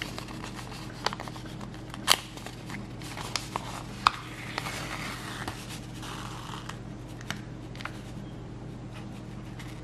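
Stiff paper practice card being handled and flexed while a needle and thread are worked through its punched holes: scattered sharp clicks and crinkles, the loudest about 2 and 4 seconds in, and a soft rustle of thread being drawn through the paper midway. A steady low hum lies under it all.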